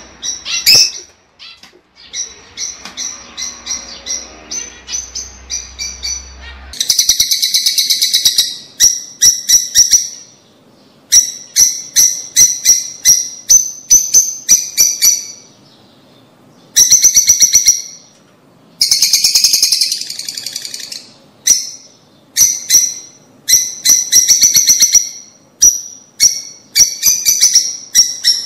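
Lovebirds calling: sharp, high-pitched chirps repeated in quick bouts, with a few longer runs of dense chatter. The calls are softer for the first several seconds and grow much louder about seven seconds in.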